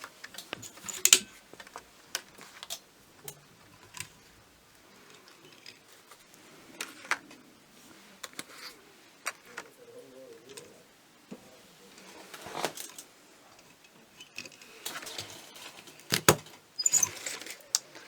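Small metal eyelets clinking and clicking as they are handled and pushed into punched holes in cardstock, with paper rustling between the clicks; a few sharper clicks stand out, near the start and again near the end.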